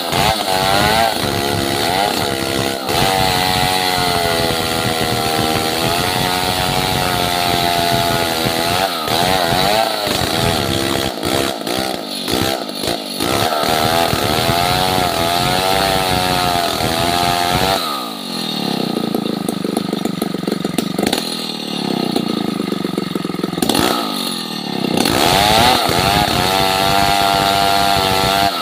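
A German-made two-stroke chainsaw cutting through a large log, running hard. Its engine pitch keeps dipping and rising as the chain bites and eases in the wood, with a few sharper swings in the later part.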